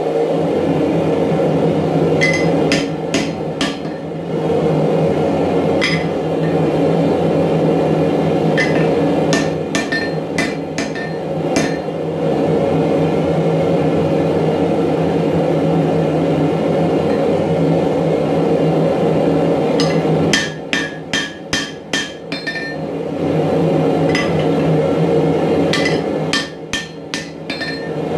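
Hand hammer striking a red-hot 4140 steel axe head held on an anvil, in several short bursts of rapid blows with pauses between. A steady droning roar runs underneath throughout.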